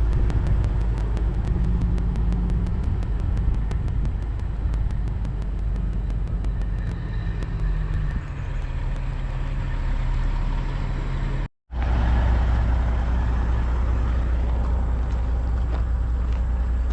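Heavy truck engine running steadily with a low drone. It breaks off for a moment about eleven seconds in and comes back as a deeper, steadier drone.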